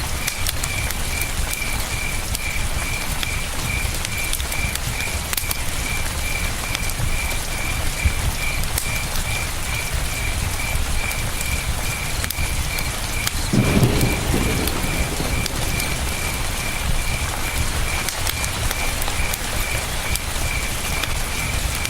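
Campfire crackling with sharp little pops over the steady rush of a river, while a cricket chirps in an even pulse, about three chirps a second. A short low thud-like burst comes about fourteen seconds in.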